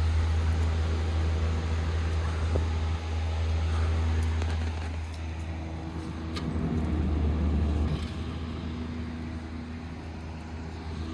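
Newly installed ventilation fan running steadily with a low, even hum; it is pretty quiet.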